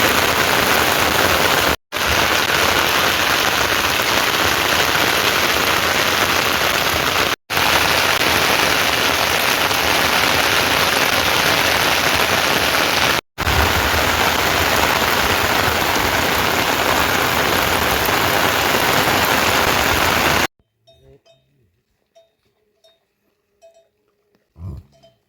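Heavy rain falling, a loud, even hiss broken by three very brief gaps. About 20 seconds in it cuts off suddenly, leaving near quiet with a few faint short sounds.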